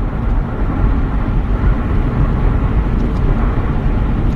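Steady low rumbling background noise, like a vehicle running or wind on the microphone.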